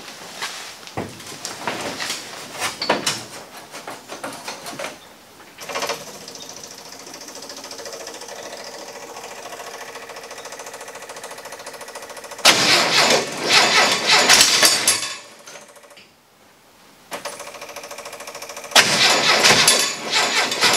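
Cold start attempt on a VW Baja Bug's air-cooled flat-four engine. After some knocks and a steady hum, the engine is cranked over loudly twice: once from about 12 to 15 seconds in, and again from about 19 seconds on.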